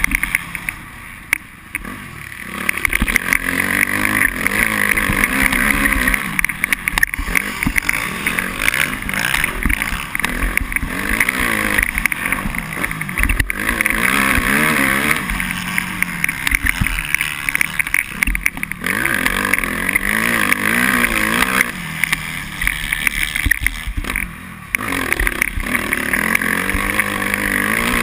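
Suzuki RM-Z250 four-stroke single-cylinder motocross engine, heard from on the bike, running under throttle with its pitch rising and falling as the rider accelerates and eases off. The throttle is backed off twice, briefly about a second in and again about three-quarters of the way through, before the engine picks up again.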